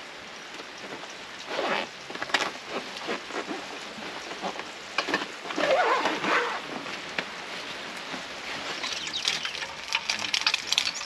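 Rain falling steadily, with scattered sharp drop ticks and a few louder rustling knocks.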